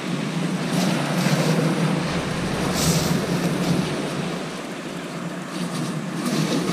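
Sea surf breaking on a shingle beach, with wind buffeting the microphone; the noise swells between about one and three seconds in and eases off near five seconds.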